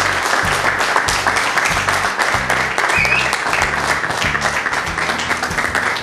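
Audience applauding, a dense patter of many claps, over background music with a steady low bass line.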